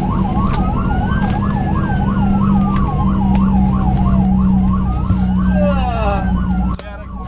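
Fire engine sirens heard from inside the crew cab: one fast rising-and-falling yelp repeating several times a second, and a second, slower wail sweeping up and down over a few seconds, over the steady drone of the truck's engine. Near the end the sound drops sharply and the engine drone fades.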